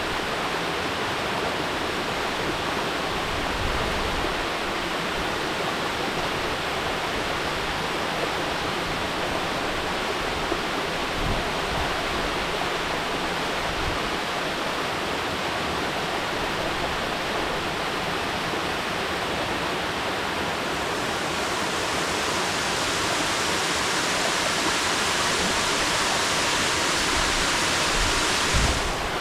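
Mountain waterfall rushing steadily. About two-thirds of the way through it turns brighter and hissier, then drops back suddenly just before the end.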